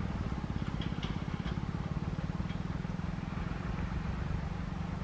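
Diesel locomotive engine running with a low, steady throbbing beat as the train approaches on a curve.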